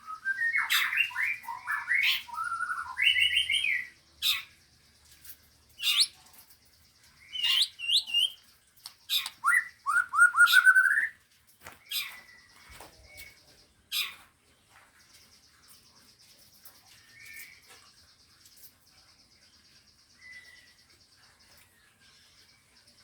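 Songbirds singing: dense bursts of loud chirps, whistles and quick rising trills for the first half, then thinning to sparse, quieter calls. A steady high-pitched buzz runs underneath in the later part.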